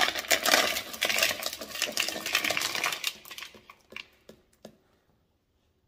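Tumbled agates clattering together in a dense rattle as they are poured out of the tumbler barrel, thinning to a few last clicks after about three seconds.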